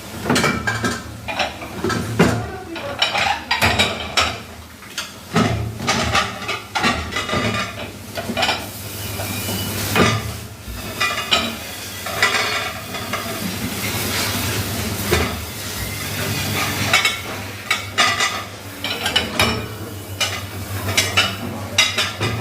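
Dishes, pots and cutlery clattering and knocking irregularly as they are handled and washed, over a steady low machine hum.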